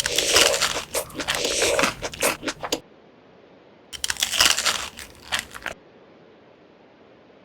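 Crunchy food being bitten and chewed close to the microphone, in two bursts of dense crunching: one about three seconds long, then a shorter one about four seconds in. After that only a faint hiss remains.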